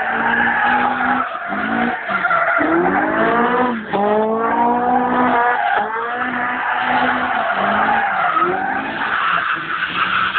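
Car spinning donuts: the engine runs at high revs, its pitch rising several times as the throttle is worked, while the tyres screech continuously as they skid on the tarmac.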